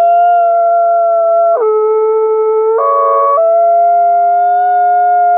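Wolves howling in chorus: several long howls at different pitches overlap and are each held nearly level. The voices step to new pitches about a second and a half in and again around three seconds.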